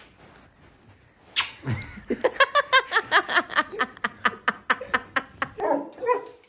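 A sharp slap about a second and a half in, then a person laughing hard in rapid bursts for about three seconds.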